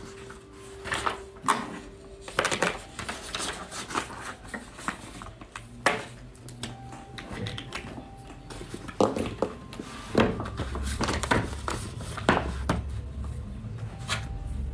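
Sheets of a thick stack of printed paper being flipped and handled on a desk: irregular rustles, flaps and taps. Quiet background music plays underneath.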